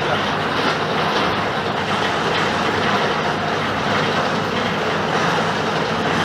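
Mercedes-Benz OF-1721 BlueTec 5 diesel bus running steadily under way: an even engine drone mixed with rolling road noise.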